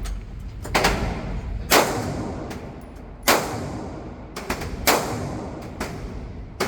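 Gunshots fired one at a time at a shooting range, the four loudest about one to one and a half seconds apart, each with a short ringing tail, with fainter shots in between.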